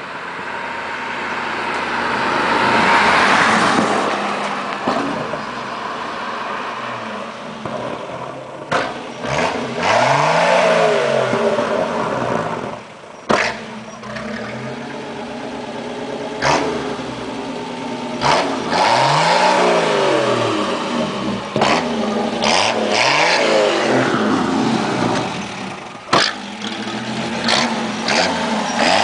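1962 Opel Kapitän's straight-six engine revved hard again and again, its pitch rising and falling. Sharp bangs come from the exhaust, singly and in quick pairs, as the exhaust flamethrower fires.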